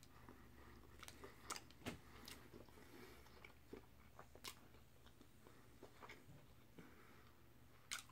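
A person chewing a mouthful of burger with his mouth closed: faint, irregular soft clicks of chewing, a few of them a little louder.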